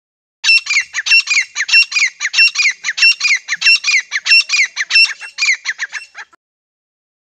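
Grey francolin calling: a loud, fast run of shrill repeated phrases, about nine in six seconds. The calls stop abruptly shortly before the end.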